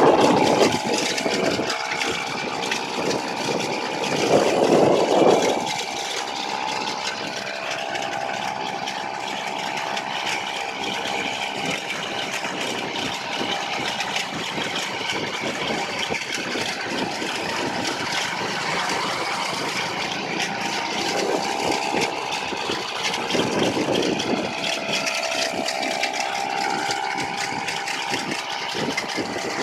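Small petrol engine mounted on a bicycle's rear carrier running steadily at speed, a steady high-pitched engine drone under road and wind noise. Two brief louder rushes of noise come about five seconds in and again near the end.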